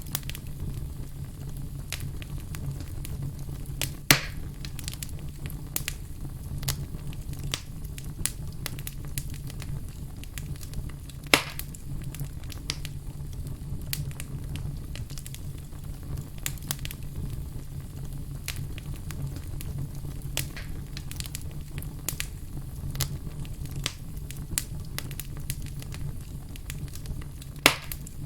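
Wood logs burning in a fireplace: a steady low rumble of flame with irregular crackles, and three louder sharp pops about 4, 11 and 27 seconds in.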